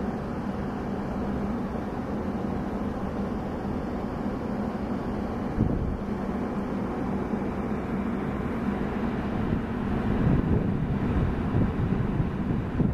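Stainless-steel Metra bilevel passenger cars rolling past on the rails: a steady low rumble of wheels and trucks. Wind gusts on the microphone in the last few seconds.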